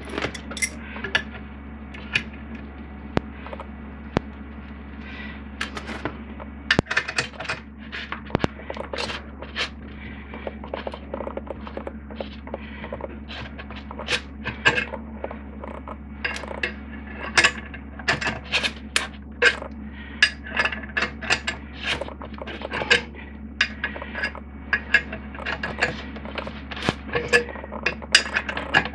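Metal hand tools clinking and scraping on a brass shower-spout fitting on a copper pipe, as an adjustable wrench and a hex key are set on it and turned: many irregular sharp clicks and taps over a steady low hum.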